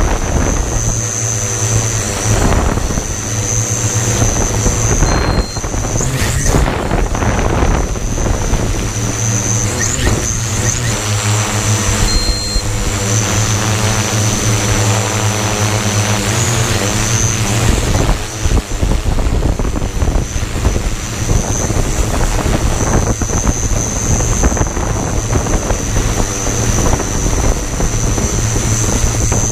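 Large six-rotor hexacopter's electric motors and propellers running in flight: a steady low drone with a high whine above it, the pitch shifting now and then as the motors change speed. Strong, gusty wind rushes over the microphone.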